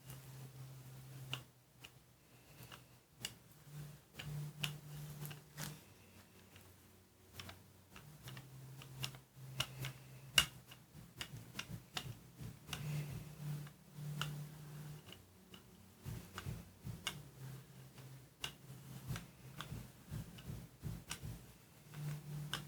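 A 4-inch brayer rolled back and forth through paint on a gel printing plate, giving many irregular small clicks and ticks, with a faint low hum coming and going underneath.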